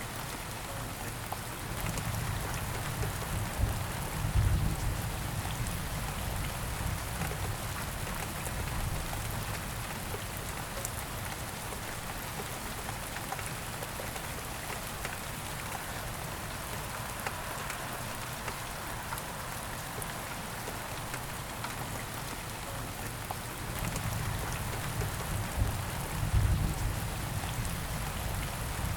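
Steady rain falling and pattering on surfaces. A low rumble swells up twice, a few seconds in and again near the end.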